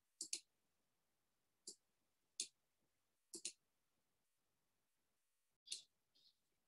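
Computer mouse clicks, about eight of them spread over several seconds, some in quick pairs, against near silence.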